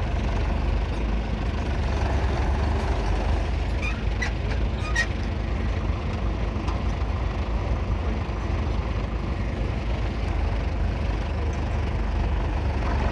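1938 Fordson Model N's 3.6-litre four-cylinder diesel engine running steadily.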